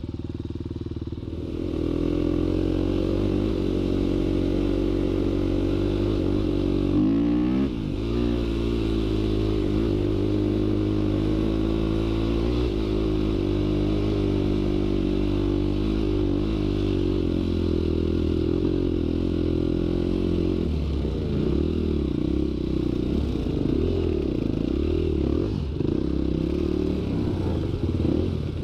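Motorcycle engine running under way. It gets louder about a second and a half in, revs quickly up and down near seven seconds, and its pitch rises and falls repeatedly in the last several seconds as the throttle changes.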